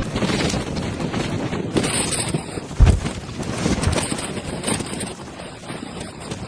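Rushing noise of wind buffeting the microphone, with a sharp low thump a little under three seconds in and a few lighter knocks.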